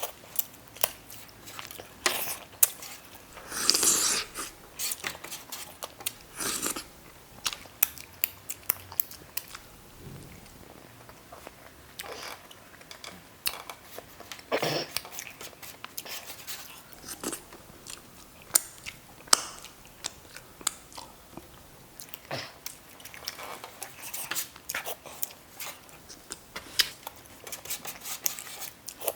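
A person chewing and biting food, with irregular sharp mouth clicks and occasional crunches.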